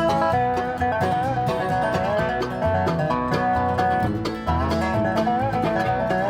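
Background music: an upbeat bluegrass-style tune led by plucked banjo over a steady beat.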